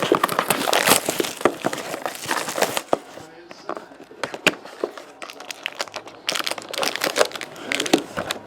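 Plastic wrapping on a sealed box of hockey cards crinkling and tearing as the box is opened: dense crinkling for the first three seconds and again near the end, with scattered crackles in between.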